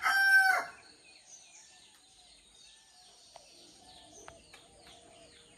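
A rooster's crow, a long held note, ends about a second in. Then faint small-bird chirps follow, a run of quick falling notes that grows busier in the second half.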